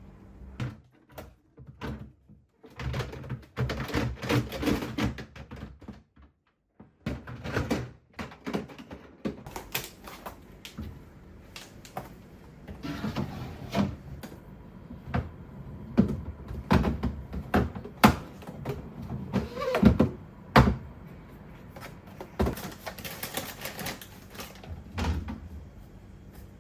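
Kitchen items and food containers being handled while a refrigerator is cleaned and restocked: irregular sharp clicks and knocks, with stretches of rustling.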